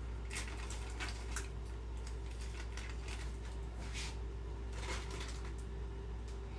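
A few light clicks and scrapes of kitchen handling, such as a freshly opened metal can and utensils, over a steady low hum.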